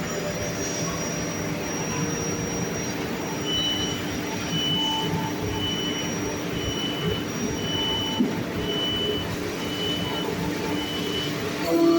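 CNC milling machine running, a steady mechanical noise with a few steady hums, joined from about a third of the way in by a high beep repeating about once a second, about eight times.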